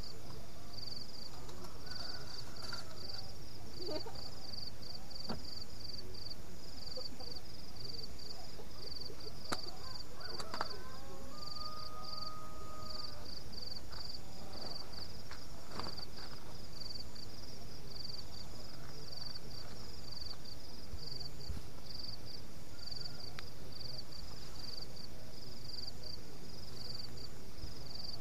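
Night insects chirping in a steady, fast pulsing rhythm, with a few scattered knocks and clicks from someone moving about.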